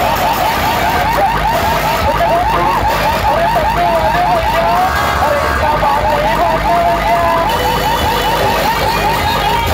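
DJ truck sound system blasting a siren-like warbling effect: a rapid wobbling tone repeating several times a second over a steady low bass. The wobble briefly settles into a held note about halfway through before starting again.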